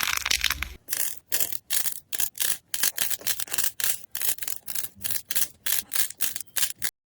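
Slime being worked in a quick, even run of crisp, scratchy strokes, about three a second, after a short stretch of dense crackling at the start; it cuts off abruptly near the end.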